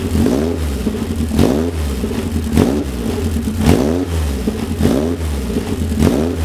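Caterham Seven's Vauxhall four-cylinder engine revving up again and again, its pitch climbing and dropping back roughly once a second.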